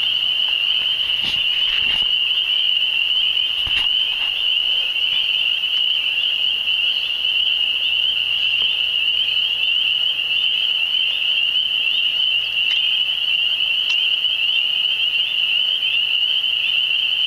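A dense chorus of spring peepers: many high peeps merging into one steady, shrill band of calling.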